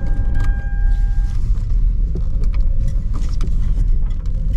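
Car driving slowly, heard from inside the cabin: a steady low rumble of engine and tyres with scattered small clicks and ticks. A faint steady tone fades out about a second and a half in.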